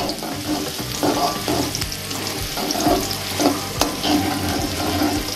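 Sliced shallots sizzling in hot cooking oil in a metal wok while a metal spatula stirs and scrapes them across the pan, with a couple of sharp clinks of the spatula about three and a half seconds in. The shallots are being sautéed until fragrant, the first step of a stir-fry.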